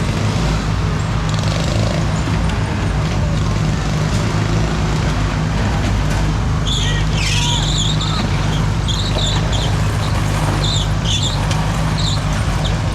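Riding lawn mower engine running steadily under racing use, a constant low drone. Short high-pitched chirps or calls come over it for a few seconds about halfway through.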